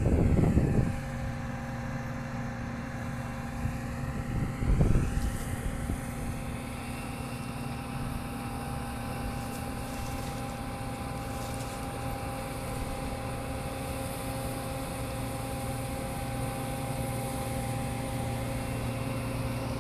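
Farm tractor's diesel engine idling steadily with an even hum. Two short, loud low rumbles break in, one at the start and one about five seconds in.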